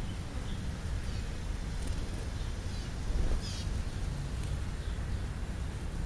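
House sparrows chirping in short, scattered calls, with a few quick falling chirps about three seconds in, over a steady low rumble.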